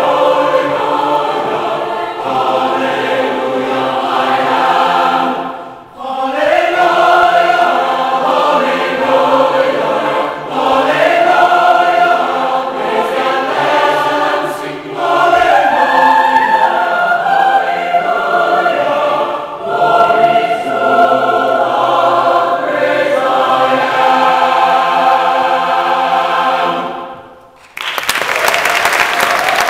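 A mixed choir sings in full harmony, phrase after phrase, with short breaks between phrases. The final chord stops about 27 seconds in, and audience applause starts a second later.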